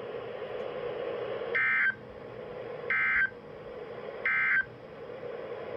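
Three short bursts of warbling digital data tone over a weather radio broadcast, evenly spaced about 1.3 seconds apart, with steady radio hiss between them. These are typical of the SAME end-of-message code that closes a National Weather Service warning.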